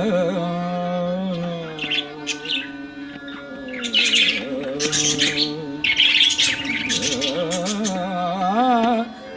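Cage birds from a mixed aviary of budgerigars, cockatiels and Java finches chirping in quick clusters, busiest in the middle. Behind them runs devotional background music with a wavering melody.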